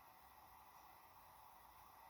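Near silence: a steady faint hiss of room tone.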